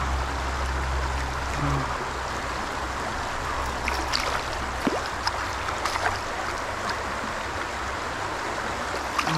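Shallow river water running steadily, with small sharp splashes from about four seconds on as a caught mojarra is handled in the water.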